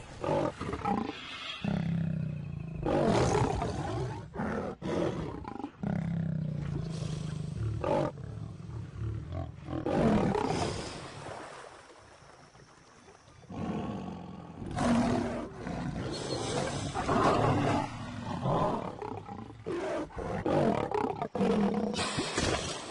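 African lion roaring in repeated bouts, with a quieter lull about halfway through.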